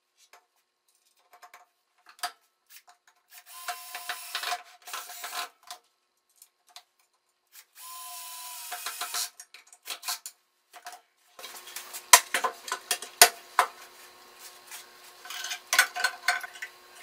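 Cordless drill/driver running in short bursts into a plywood extension table. In the second half there are knocks and clatter from parts being handled.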